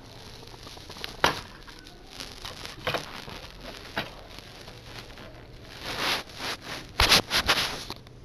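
Handling noise: rustling with scattered clicks and knocks, then a quick run of loud clicks about seven seconds in.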